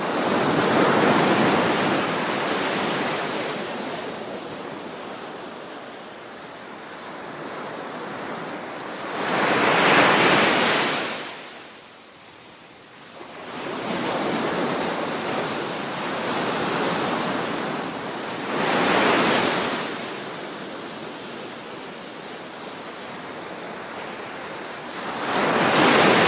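Ocean surf breaking on the beach: waves crash and wash up the sand, swelling loud several times, with a steady wash between.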